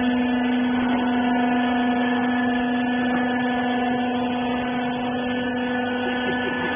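Hydraulic rag baler's power unit running: a steady mechanical hum with a strong low tone that holds constant.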